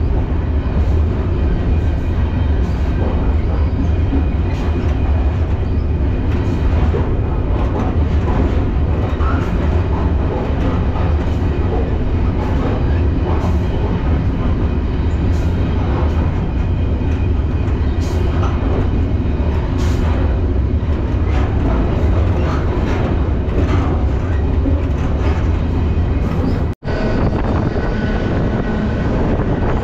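Freight train rolling along, a heavy steady low rumble of wheels on rail with scattered clanks and knocks. The sound breaks off for an instant near the end.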